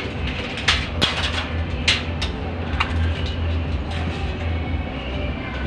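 Tin snips cutting across a vented spandrel panel: about five sharp snips in the first three seconds, then only a steady low hum.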